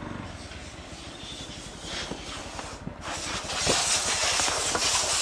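Bajaj Pulsar NS160's single-cylinder engine running at low speed with an even low pulsing, joined by a broad hiss that grows louder about three seconds in.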